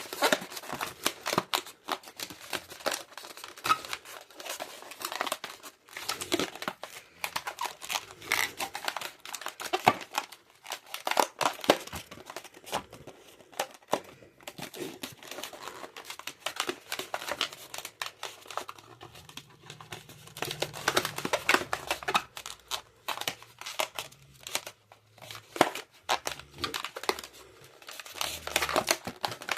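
Latex modelling balloons being handled and twisted: an irregular, dense run of rubbing, squeaking and crinkling sounds with frequent sharp peaks.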